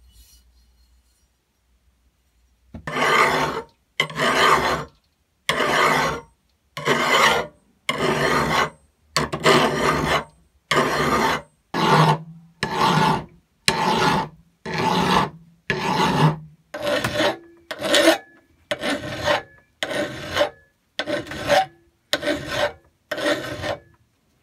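Hand file rasping across the rusty, pitted steel of a bolt cutter's handle and jaw arm: about twenty slow push strokes, roughly one a second, silent between each, starting about three seconds in. It is the filing away of rust and pitting during the restoration.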